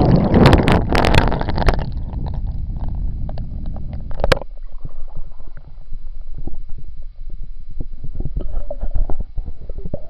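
Water sloshing and bubbling around a Kodak Mini ZM1 waterproof camcorder in a glass of water, heard through the camera's own microphone, loud for about the first two seconds. Then a sharp click, followed by low rumbling and scattered knocks as the wet camera is handled.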